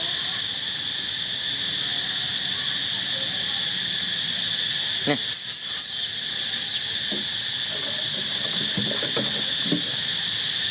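Steady, shrill chorus of insects droning in several high bands without a break. A few short, sharp clicks or squeaks stand out about five seconds in.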